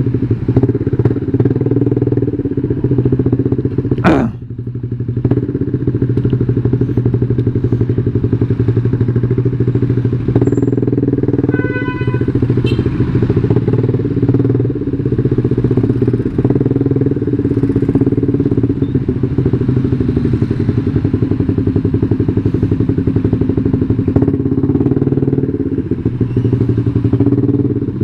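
Yamaha New Jupiter MX 135's single-cylinder four-stroke engine running steadily while the bike is ridden. Its sound drops briefly about four seconds in, then picks up again.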